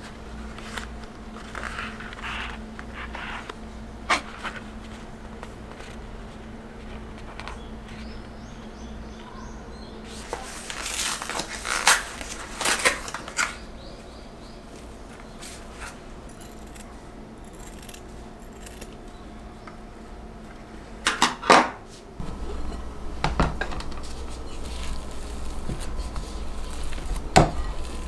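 Kitchen handling sounds: a paper package opened and handled on a countertop, rustling in short bursts, with scattered clicks and knocks of things set down.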